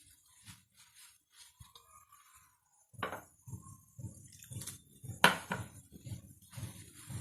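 Hands kneading very soft, wet besan dough in a parat, starting about three seconds in with squelching strokes about twice a second. There is one sharp clink partway through.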